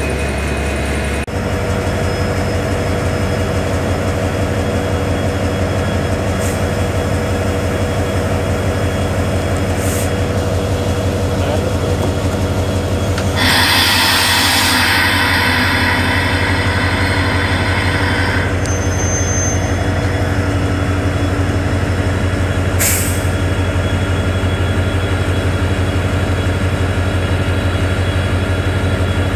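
Railway locomotive engine idling with a steady low rumble. About midway a loud hiss starts and lasts about five seconds.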